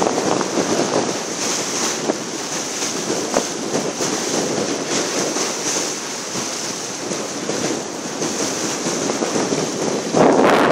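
Wind buffeting the microphone over the steady rush and hiss of fast, churning tidal water against the hull, a strong spring-tide current. A gust hits the microphone harder near the end.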